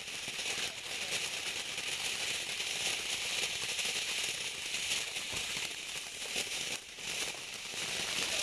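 A ground firework giving off a continuous hissing crackle, with a brief lull about seven seconds in.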